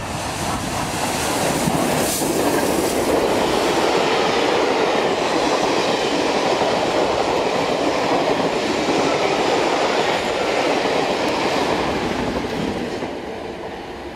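Steam locomotive 60163 Tornado, an LNER Peppercorn A1 Pacific, passing at speed with its train of coaches: a steady rush of wheel and rail noise. It builds over the first couple of seconds as the engine comes by, holds as the coaches pass, and eases near the end.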